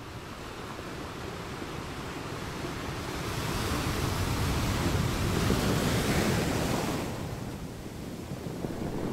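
Rushing sound of surf: a single swell of noise that builds for a few seconds, is loudest around the middle, and ebbs away.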